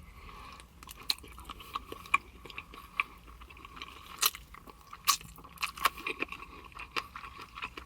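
Close-miked chewing of a bite of chicken wing flat, with irregular crisp crunches.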